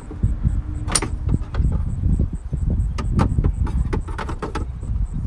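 Hands working the plastic centre-console trim panels and their retaining clips: an irregular run of knocks, clicks and scrapes, with one sharp snap about a second in.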